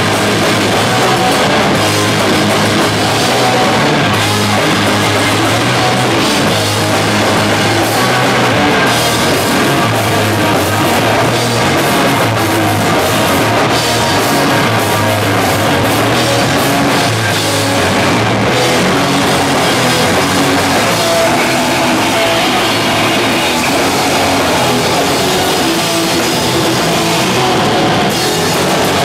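Live hardcore punk band playing loud: distorted electric guitars, bass and drum kit in a dense, steady wall of sound, heard through an old, worn tape recording.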